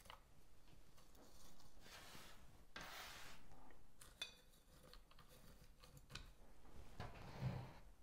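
Faint clicks and rustling as whole nuts in their shells are set into a glass vase, knocking against the glass and each other. There are a few sharp clicks, the clearest about four seconds in, between soft rustles.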